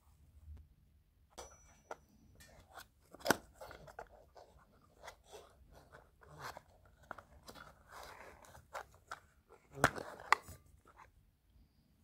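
Small cardboard box being opened by hand and its contents pulled out: rustling and crinkling of the packaging with scattered sharp taps and clicks, the loudest about three seconds in and again around ten seconds in.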